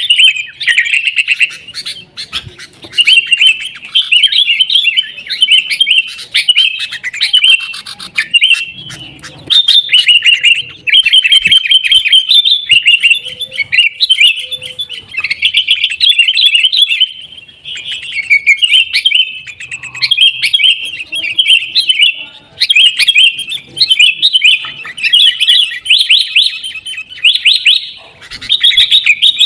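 Sooty-headed bulbuls (kutilang) chattering and calling rapidly in noisy, excited bursts with short pauses between them, as in a fight between birds.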